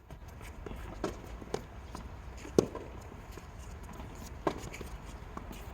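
Tennis rally: balls struck by rackets and bouncing on the court, a handful of sharp pops one to two seconds apart, the loudest about two and a half seconds in.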